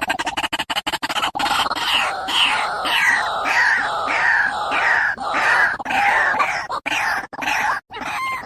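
White-breasted waterhen (ruak-ruak) calling. It opens with a fast rattle of short notes, then gives a loud run of repeated croaking calls, about two to three a second, which break up into separate notes near the end.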